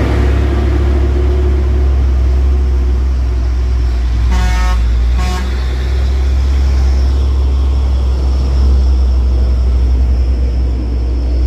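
Heavy vehicle engine running with a loud low rumble, and two short toots of a vehicle horn about four and five seconds in.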